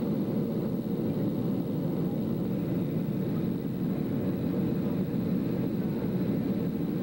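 Steady cabin noise of an airliner in flight, engines and airflow, heard from a passenger seat at the window.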